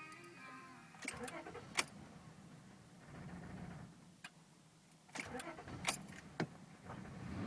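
The 2000 Honda Accord's engine runs with a low, uneven rumble that fades and returns, while several sharp clicks or knocks sound, the loudest about two seconds in. The car is logging a misfire-on-all-cylinders code.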